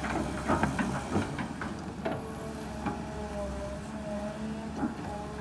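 Kobelco SK200 hydraulic excavator running, its engine drone under a wavering whine, with irregular knocks and clunks scattered throughout.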